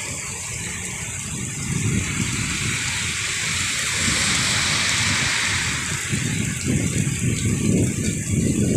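Heavy rain pouring onto a flooded street, a steady hiss that swells a little midway. Low rumbling builds near the end as a motor vehicle approaches through the water.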